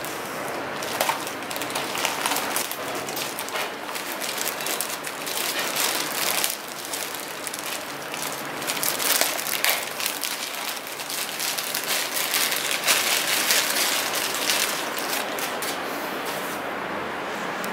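Thin clear plastic wrapping crinkling and rustling as a bicycle seat post and saddle are handled and pulled out of it.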